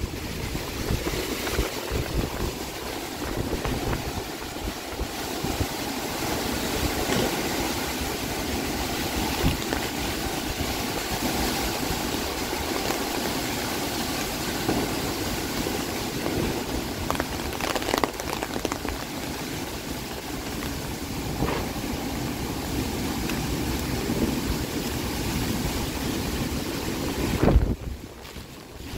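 Strong typhoon wind gusting and rumbling on the microphone, over a steady rushing noise. A sharp knock about 18 seconds in and a louder one near the end.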